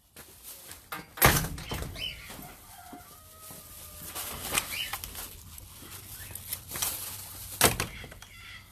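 Chickens and other farm birds calling faintly, with short clucks and calls in the middle. Two sharp rustling knocks stand out, about a second in and near the end.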